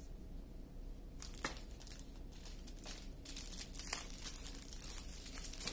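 Small plastic bags of diamond painting drills crinkling and rustling as they are handled, starting about a second in, with a few light clicks.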